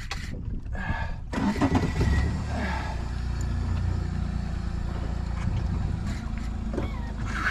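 Boat engine starting about a second in, then running steadily at low revs.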